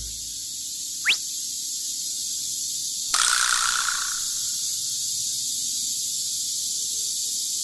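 A steady hiss, with one short rising whistle about a second in and a brief rush of noise that fades out over about a second, starting about three seconds in.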